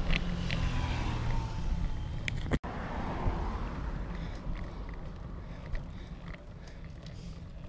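Wind rumbling on the microphone of a camera carried while riding, with road and bicycle noise underneath and a few faint clicks. The sound breaks off for an instant a little over two seconds in and goes on slightly quieter.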